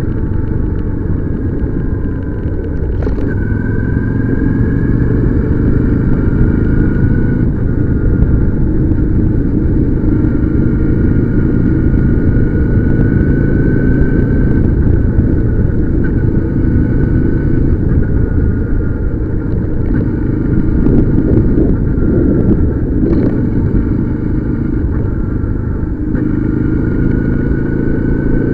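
Motorcycle on the move: steady engine and wind rumble, with a thin whine that slowly rises and falls as the speed changes.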